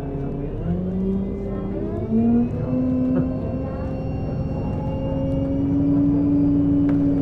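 Bus accelerating: the engine and drivetrain whine steps up in pitch twice early on, then rises slowly and holds, over a steady low road rumble.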